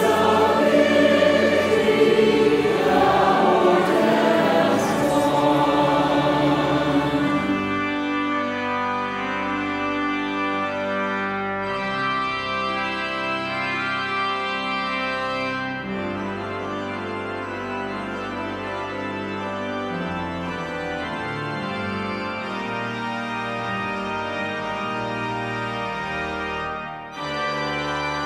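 A large choir sings the closing line of an Easter hymn, ending about seven seconds in; then an organ plays slow sustained chords, with a brief dip shortly before the end.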